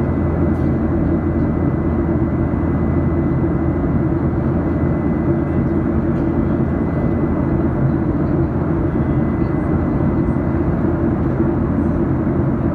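Steady engine and airflow noise of a jet airliner in flight, heard inside the passenger cabin, with a faint steady high tone over it.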